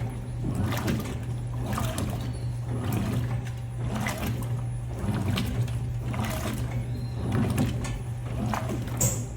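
Electrolux LTM16 top-loading washing machine in its wash cycle: a steady motor hum with a swishing stroke about once a second as the load is agitated back and forth.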